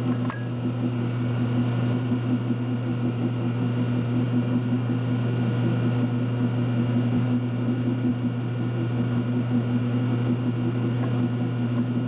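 Steady low electric hum of shop machinery running, with one brief light metallic clink a fraction of a second in.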